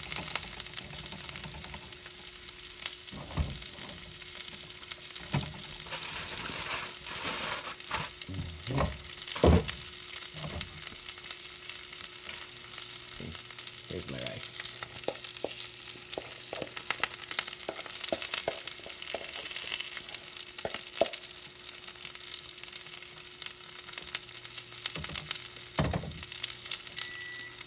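Zucchini slices sizzling in a nonstick frying pan, a steady frying hiss, with scattered clicks and knocks of a spatula and cookware against the pan; the loudest knock comes about a third of the way in.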